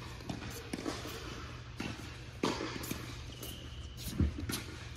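Scattered knocks and taps in a large indoor tennis hall, over a steady low hum, with a heavier thump a little past four seconds in.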